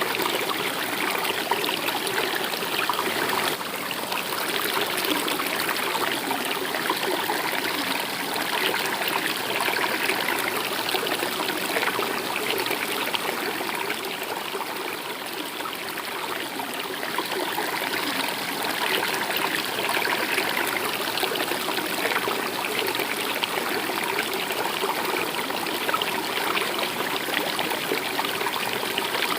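Stream water running steadily, an even rushing and trickling flow.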